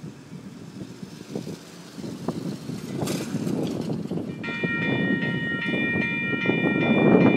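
An MBTA commuter train approaching a grade crossing, its low rumble building. About four and a half seconds in, the locomotive sounds its horn, a multi-note chord held steady.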